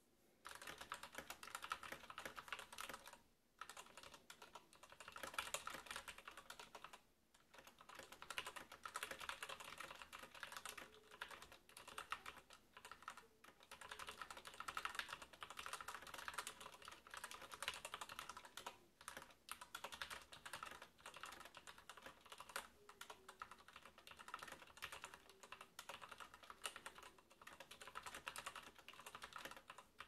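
Typing on a Krux Atax Pro RGB mechanical keyboard with stock Outemu Red linear switches: a fast, continuous clatter of keystrokes starting about half a second in, with a few brief pauses.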